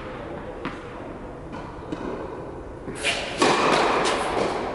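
Tennis ball bounced a few times on the hard indoor court, then the racket strikes the ball on a serve about three seconds in. A louder thud follows, echoing around the large hall.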